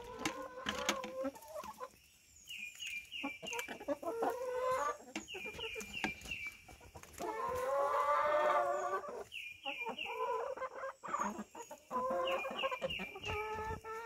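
A flock of hens clucking as they feed, short calls coming in quick little runs, with one longer drawn-out call about halfway through.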